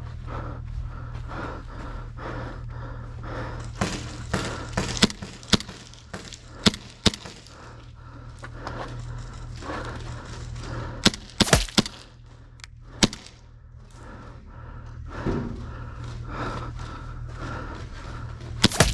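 Sharp, scattered cracks of airsoft gunfire and BB hits, single shots spaced about half a second to a second apart, with a quick cluster of four or five cracks partway through. A steady low hum runs underneath.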